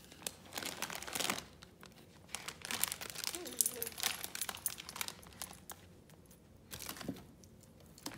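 Plastic candy bag crinkling and rustling in irregular bursts as a toddler grabs and handles it among cardboard box flaps.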